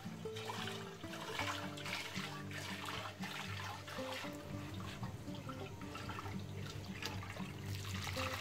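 Cooking water poured off a pot of parboiled rice, splashing into a plastic colander in irregular bursts, the heaviest near the end, over instrumental background music.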